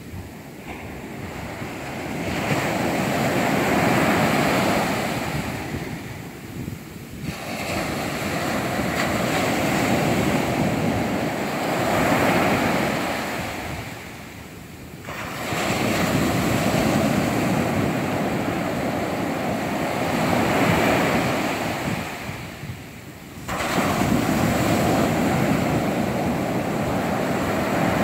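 Ocean surf: small waves breaking and washing up the sand, surging and easing off in slow swells about every eight or nine seconds.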